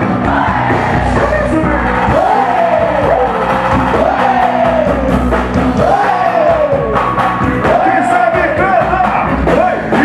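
Loud live pagodão band music: a male lead singer's voice over percussion, bass and a steady beat, amplified through the PA.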